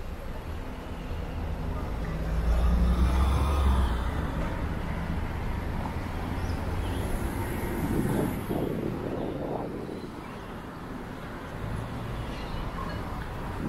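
Street traffic: a motor vehicle's engine rumbles past, loudest about two to four seconds in, then fading into steady traffic noise.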